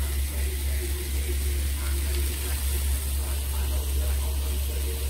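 A steady low hum under a faint even hiss, with indistinct voices faint in the background.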